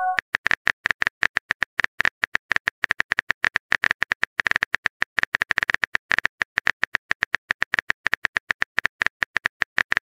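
Rapid phone-keyboard key clicks, many a second at an uneven pace, as a text message is typed out letter by letter.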